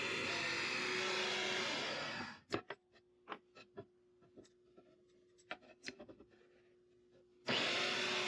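A power tool cutting steel rod runs with a steady, loud noise and stops about two seconds in. A series of sharp clicks and knocks from handling the metal follows over a faint low hum. The cutting noise starts again abruptly near the end.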